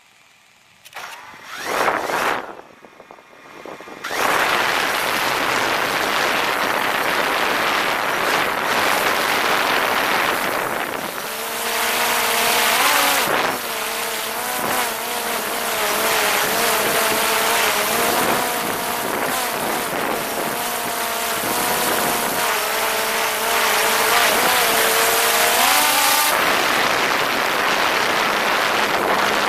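Quadcopter drone's propellers and motors heard from a camera slung right beneath them. The motors start up with brief gliding bursts about a second in. From about four seconds in there is loud, even rushing of propeller wash. Through the middle a wavering motor whine shifts in pitch as the drone manoeuvres, then drops away near the end, leaving the rush.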